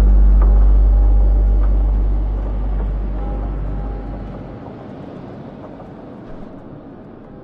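Deep low rumble in the background soundtrack that fades out about four seconds in, leaving a faint hiss with a few thin sustained tones.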